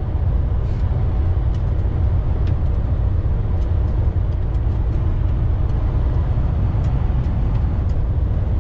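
Steady low drone of a DAF truck's engine and tyres, heard from inside the cab while cruising at road speed, with a few faint small ticks.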